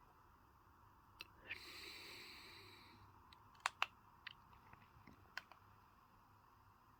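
Quiet handling of small electronic gear: a soft click, a short hiss like a breath out, then a cluster of small sharp clicks, the two loudest in quick succession, over a faint steady hum.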